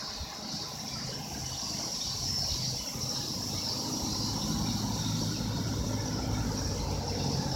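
A steady low engine hum, growing a little louder about two seconds in.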